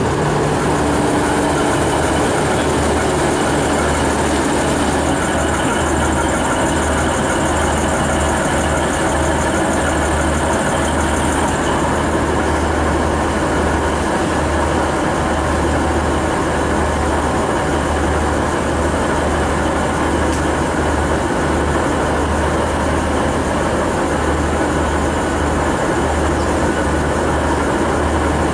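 V/Line VLocity diesel multiple unit standing at the platform with its underfloor diesel engines idling: a steady, loud low throb that pulses evenly, with a thin high whine over it.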